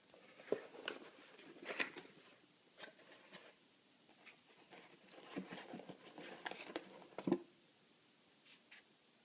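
Hands handling a phone's box and packaging: irregular light scrapes, rustles and taps, with a sharper knock about seven seconds in.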